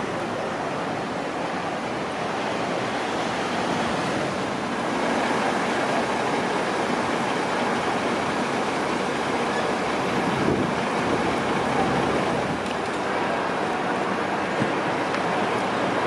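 Steady outdoor city street noise: a continuous hiss of traffic passing on a busy road.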